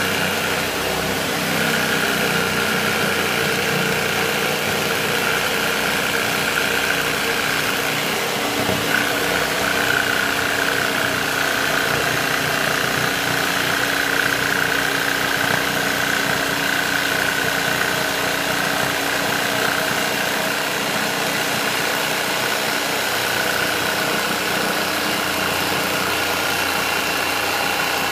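Handheld electric jigsaw running steadily, its blade sawing through clear acrylic sheet.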